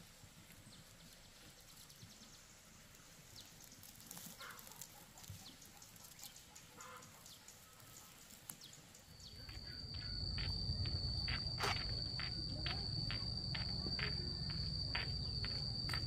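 Faint outdoor background with a few short bird chirps. About nine seconds in, a steady high insect trill sets in over a low rumble, with a fast run of regular ticks.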